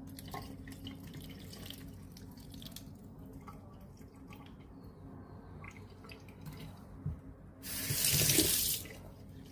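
Kitchen sink tap running for about a second near the end, preceded by light knocks and handling sounds.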